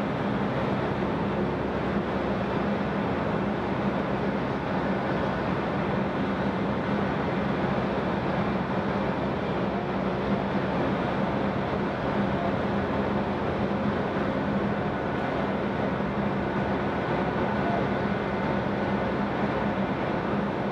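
Steady drone of heavy machinery: an even rushing noise under a low hum, with faint, steady higher whines over it.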